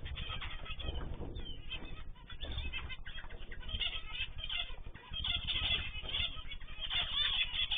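A flock of pet cage birds chirping and calling over one another, the chatter growing louder about five seconds in.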